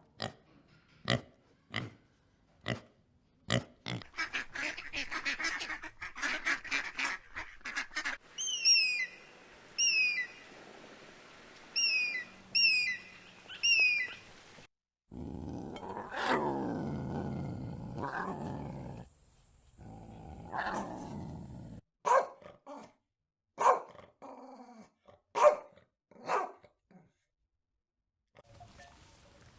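A string of different animal calls, one short clip after another: brief calls in the first seconds, then repeated quick chirps that fall in pitch, then a longer pitched call, then a few short calls again.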